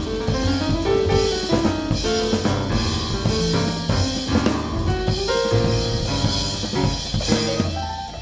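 Jazz piano trio recording: piano and bass with a busy drum kit.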